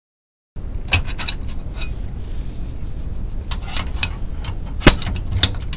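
Metal wrench clinking and tapping against the fuel filter's threaded fuel-line fitting as it is put on and worked. After about half a second of silence there is an uneven scatter of sharp metallic clicks, the loudest about a second in and near the end.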